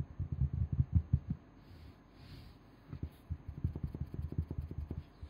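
Fingers tapping and scratching on carpet, heard as rapid dull thumps through the floor, in two runs with a short pause in between.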